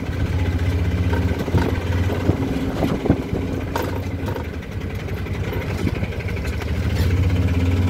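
Auto-rickshaw's small engine running steadily while driving, heard from inside the open passenger compartment, with occasional rattling knocks. The engine eases off a few seconds in and picks up again near the end.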